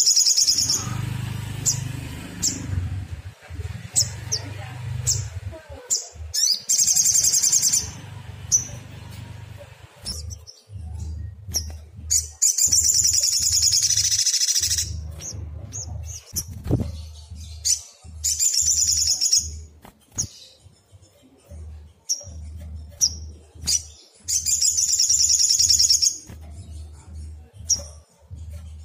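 Sunbird calling: rapid, buzzy, high-pitched trills lasting one to three seconds, five times, with short single chirps between them. This is a lure recording meant to provoke other sunbirds into calling.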